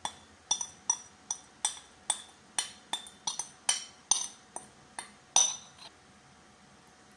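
Glass bowl knocking against the rim of another glass bowl as marinade is shaken out of it: about fifteen sharp, ringing clinks, two to three a second, stopping about six seconds in, the loudest one near the end.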